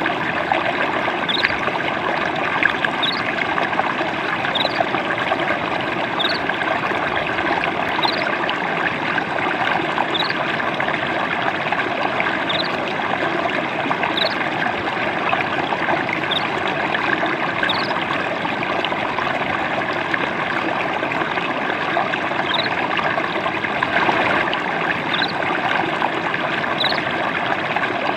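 Gently trickling, babbling water, steady and unbroken, with a short high chirp every second or two.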